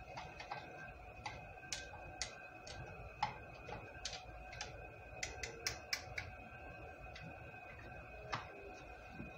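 Debubbler tool tapping and scraping against the insides of glass canning jars of rice as the contents are stirred to free trapped air before pressure canning: irregular light clicks, bunched most thickly around the middle, over a faint steady hum.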